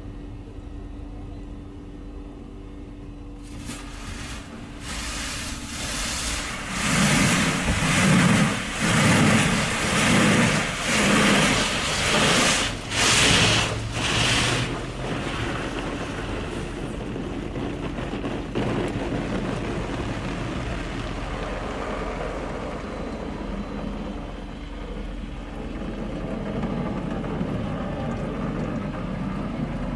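Automatic car wash machine heard from inside the car: water spray hisses over the body from a few seconds in, then a run of loud pulses about once a second, before it settles into a steadier wash noise.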